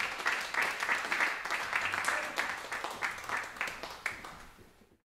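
Audience applauding, a dense patter of handclaps that dies away over the last second.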